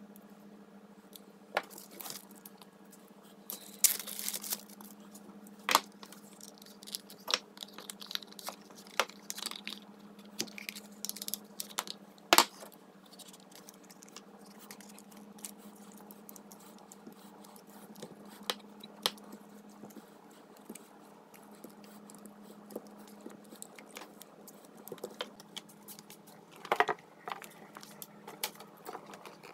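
A leather holster and a pistol being handled on a granite slab: scattered clicks, taps and knocks, the loudest a sharp knock about twelve seconds in, over a steady low hum.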